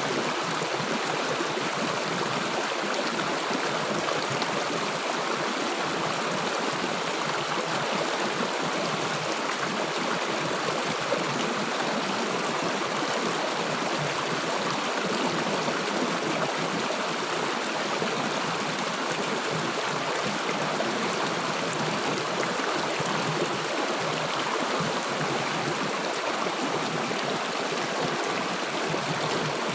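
River water gurgling and rushing, a steady unbroken flow.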